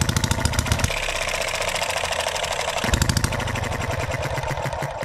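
Enjomor 6cc single-cylinder hit-and-miss model engine running fast with a rapid, even train of firing knocks, stopping near the end. It fires on every cycle instead of coasting between shots: it is not yet latching out into hit-and-miss and still needs tuning.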